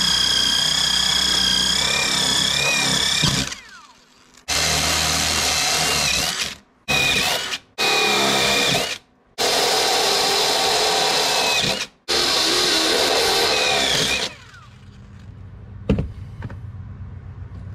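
DeWalt cordless impact driver spinning a step drill bit through the metal fuel pump hanger plate, run in about six bursts of a few seconds each with short stops between. The motor whine dips in pitch now and then as the bit bites into the metal.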